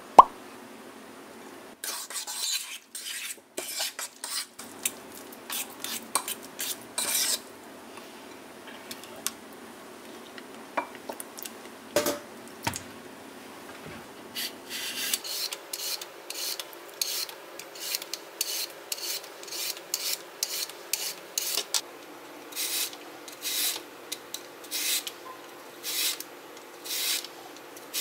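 A seasoning grinder rasps over an enamel bowl of mashed avocado, a metal spoon clicks against the bowl, and something is knocked down on a cutting board. Then a Y-peeler shaves a cucumber lengthwise in a long run of short scraping strokes, about two a second, with a brief pause in the middle.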